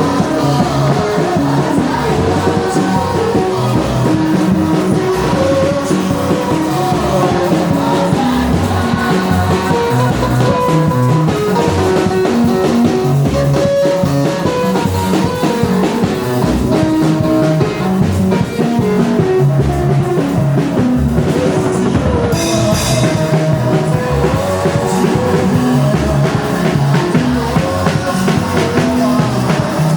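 Loud gospel music: singing over a drum kit and guitar, with a steady beat.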